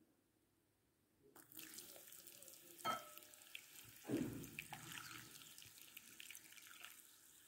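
Boiling water poured from a glass jug over a lump of clay in a glass bowl, a faint steady trickle and splash that starts about a second and a half in. A short ringing clink comes about three seconds in and a dull knock about a second after it.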